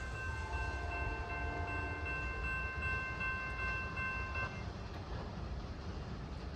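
Passenger train locomotive's air horn sounding one long chord that cuts off about four and a half seconds in, over the low rumble of the passing train.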